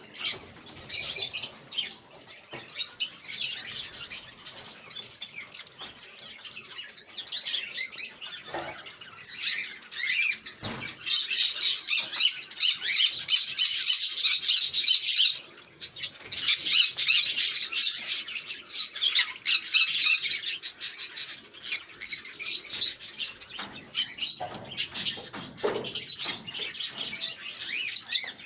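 Caged birds chirping and twittering without pause, many short high calls overlapping. They are loudest from about 11 to 20 seconds, with a brief break in the middle.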